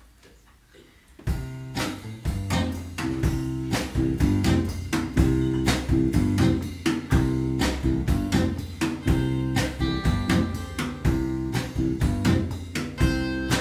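Live acoustic folk band starting a song about a second in: acoustic guitar plucking and strumming a rhythmic pattern, with other plucked strings, bass and drums playing along.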